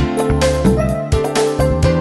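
Background music: an upbeat instrumental track with keyboard, a bass line and a regular beat.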